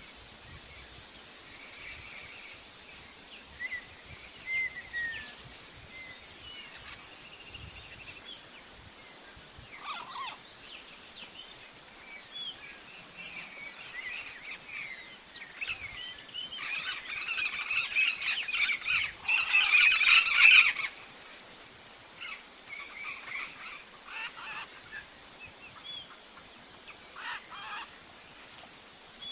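Birds chirping over a steady high insect trill, with a loud flurry of rapid bird calls building for a few seconds past the middle and stopping suddenly.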